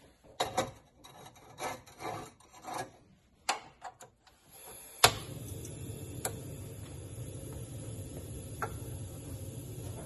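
Clay casserole pan scraping and knocking on the wire pot grate of a Marvelous II portable cassette gas stove as it is set in place. About halfway, a loud click of the stove's ignition knob, and the butane burner lights and runs with a steady hiss.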